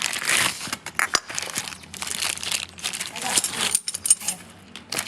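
Irregular crinkling and rustling of material being handled, broken by scattered sharp clicks.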